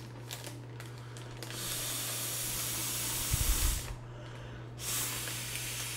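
Breath blown by mouth into a large foil balloon through its valve: two long hissing exhales, the first starting about one and a half seconds in and ending near four seconds with a low bump, the second starting about a second later. The balloon is hard to blow up.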